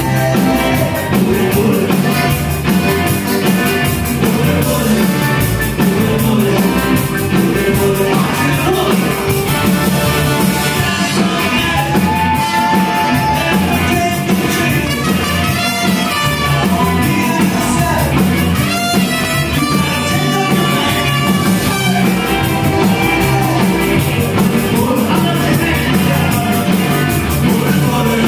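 Live Tex-Mex rock-and-roll band playing at full volume, with drum kit, electric guitar, keyboard, saxophone and button accordion, and some singing.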